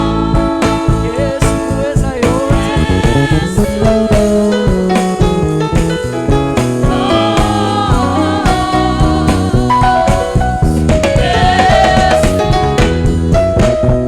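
Live gospel worship music: a band with a drum kit keeping a steady beat under sustained chords, with singing over it.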